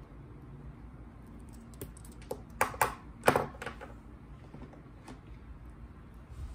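Pen writing on a calendar page, then a handful of sharp taps and clicks, the loudest two about two and a half and three and a quarter seconds in, as the last exclamation mark is dotted and the pen is lifted away.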